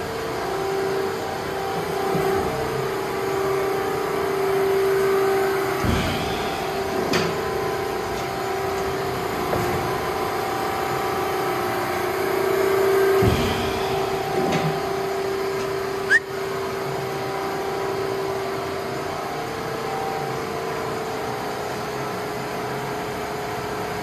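U.S. Industrial Machinery US 1350 CNC hydraulic shear running, its hydraulic pump giving a steady hum with a tone. Two heavy thuds come about seven seconds apart, each followed by a lighter knock a second later, as the machine cycles. A sharp click comes near the end.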